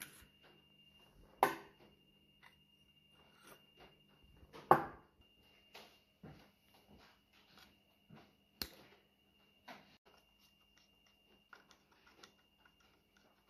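Metal parts of a Ford Model T transmission clinking and knocking as the clutch discs are lifted off the shaft and set down, with two sharp clanks in the first five seconds and a third later. Light scattered clicks follow as a screwdriver works the clutch-finger screws.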